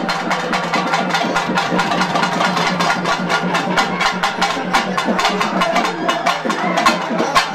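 Fast, even drumming, about five strokes a second, over a steady low hum.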